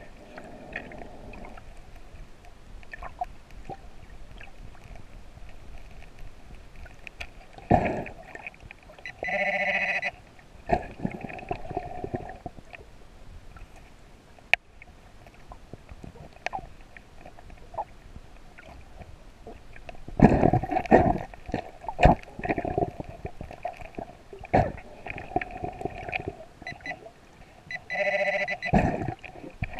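Handheld underwater metal detector sounding its alert tone underwater, swelling into a loud beep for about a second a third of the way in and again near the end as it passes over a target. Between the beeps come rumbling, gurgling bursts of scuba exhale bubbles and water stirred by hand.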